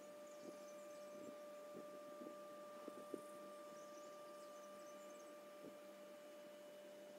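Faint, steady electrical hum of the hydropower plant's machinery: one high, even tone with a fainter tone above it, which drops away near the end. A few faint clicks sound over it, the loudest a small knock about three seconds in.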